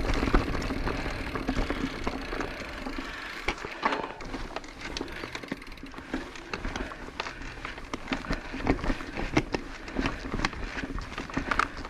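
Orbea Occam full-suspension mountain bike riding over a rocky, rooty dirt trail: tyre and rolling noise, with frequent sharp clicks and knocks from the bike. The rolling noise is louder for the first few seconds, then drops back while the clicks and knocks go on.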